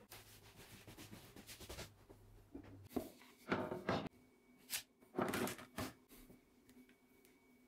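Hands handling a clear plastic mold shell and rubber mold pieces on a wooden workbench: short rubbing and scraping sounds, loudest about three and a half seconds in and again about five seconds in, over a faint low hum at the start.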